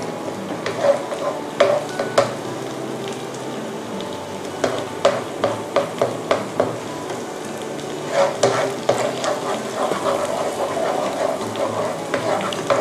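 Eggs sizzling in hot salted butter and fried garlic in a nonstick pan, with a nylon spatula tapping and scraping the pan as the setting eggs are broken up. The spatula strokes come in runs, busiest in the last few seconds.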